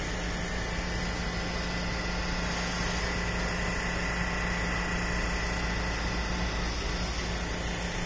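Machinery running steadily: a constant low hum with a thin high whine above it, over even background noise.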